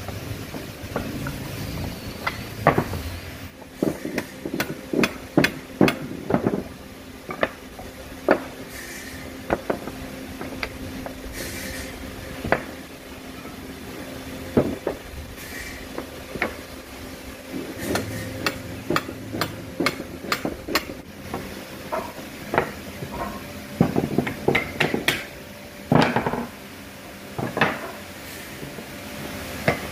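Pine slats and wooden blocks knocking and clattering against each other and the wooden bench top as they are set down and shifted by hand: irregular sharp wooden knocks, in bunches near the start and again near the end.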